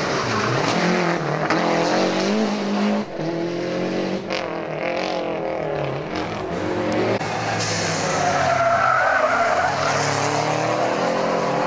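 Lancia Delta Integrale rally car's turbocharged four-cylinder engine revving hard, its pitch repeatedly rising and falling. Later a second rally car, a Renault 11 Turbo, is driven hard with a tyre squeal.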